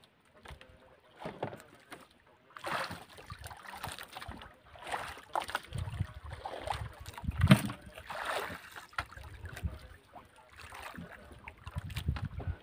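Water lapping and splashing against the hull of a small wooden outrigger boat, in irregular washes, with wind buffeting the microphone at times; the loudest surge comes a little past halfway.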